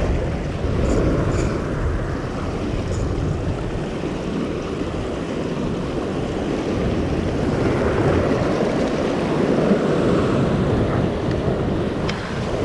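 Sea swell surging and washing against a sandstone rock ledge, mixed with wind buffeting the microphone, as a steady rushing noise.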